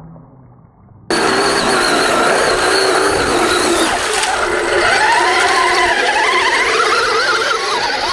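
Lipo-powered 6x6 RC truck's electric motor and drivetrain whining under load as it drives through mud and water, the pitch rising and falling with the throttle. It starts suddenly about a second in, after a faint, muffled first second.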